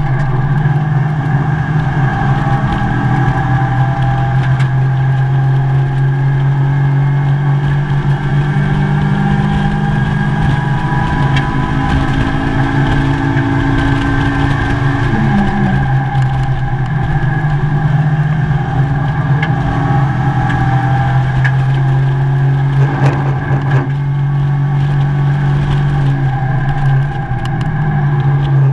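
Mazda MX-5 race car's four-cylinder engine running hard at speed, heard from inside the stripped cabin: a loud continuous drone whose pitch rises and falls slightly as the car accelerates and slows, over road and wind noise.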